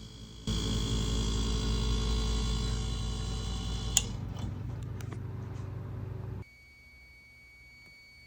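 Whirlpool refrigerator compressor coming on with a loud, steady electrical hum, with a sharp click about four seconds in. The hum cuts off abruptly after about six seconds: the fridge's compressor start device is failing.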